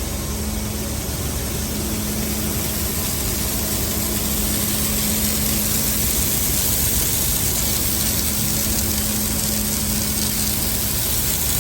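Steady running of the truck engine and grain-handling machinery as wheat unloads from a semi into a grain pit, a constant hum under a hiss. The hum drops away near the end.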